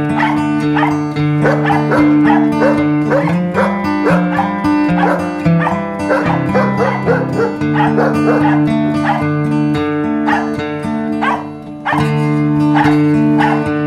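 German Shepherd barking over background music, in quick repeated barks at first that thin out to a few single barks in the second half.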